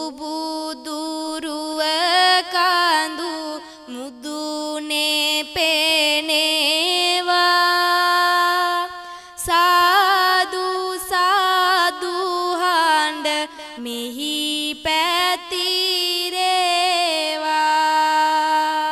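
A solo voice chanting Sinhala verse (kavi) in a slow, melismatic style, holding long notes with a wavering ornament and pausing briefly between phrases.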